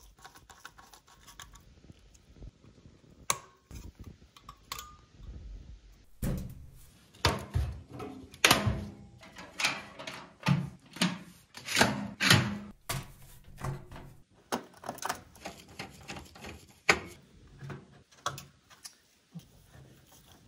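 Hands working on computer parts: an irregular run of rubbing, scraping and sharp clicks, busiest and loudest in the middle.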